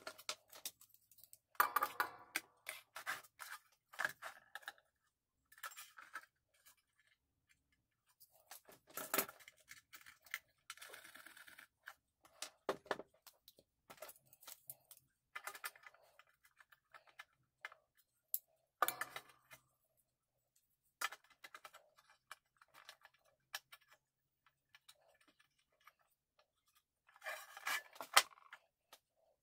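Scattered clicks, taps and short scrapes of small parts and tools being handled on a thin aluminium sheet: transformers shifted about and a steel combination square and marker set against the metal. The loudest clatters come about two seconds in and just before the end.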